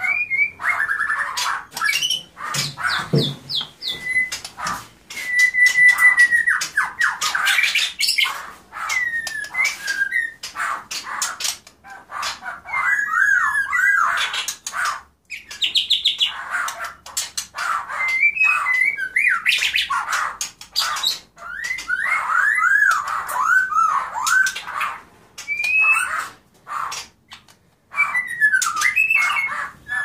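White-rumped shama singing: a long run of varied whistled phrases with looping, rising and falling notes, mixed with sharp clicks and harsh notes, broken by a couple of brief pauses.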